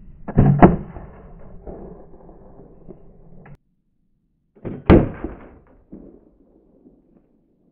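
A homemade 27,000-joule railgun firing: two loud bangs about four and a half seconds apart, the first a sharp double crack, each dying away over a second or so.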